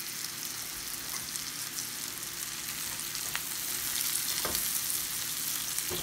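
Pheasant back mushrooms and ramp stems sizzling steadily in peanut oil and butter in a cast-iron skillet. About halfway through, a utensil starts stirring the pan, with a few sharp clicks against the iron.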